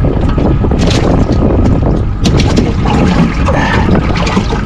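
Wind buffeting the microphone outdoors: a loud, steady low rumble, with a few short knocks through it.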